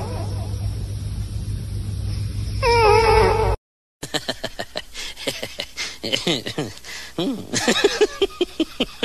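Domestic cat meowing once, about three seconds in, over a steady low hum. After a brief silence, a run of short falling whines among sharp clicks.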